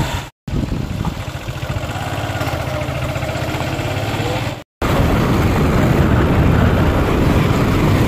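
Motorcycle engine running during a ride, heard from the seat behind the rider, as a steady low rumble. Two sudden cuts break it, and after the second, about five seconds in, it is louder with wind noise on the microphone.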